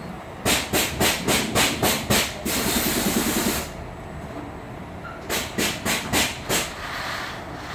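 Automatic seedling replug machine running: its pneumatic gripper head gives a quick run of short sharp air hisses, then a steady hiss of about a second, then another run of short hisses, over a steady machine rumble.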